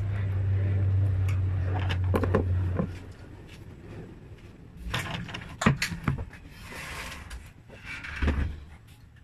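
A low steady hum that stops about three seconds in, then close-up eating of pancit canton noodles: chewing and mouth sounds with scattered sharp clicks, a short noisy patch about seven seconds in, and a soft thud near the end.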